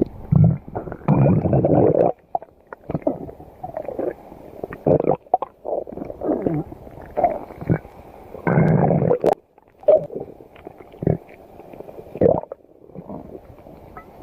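Stomach growling: a long run of irregular gurgles and rumbles with short gaps between them. The loudest stretches come near the start and again a little past halfway.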